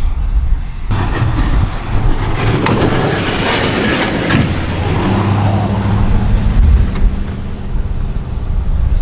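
Snowplow truck engine running steadily, with a loud rushing, scraping noise for about two seconds in the middle and a few sharp clicks.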